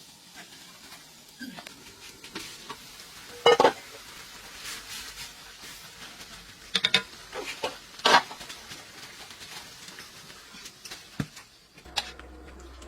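Cooking sounds: a utensil stirring and knocking in a pan over a faint sizzle of frying food, with a few sharp clanks, the loudest about three and a half, seven and eight seconds in.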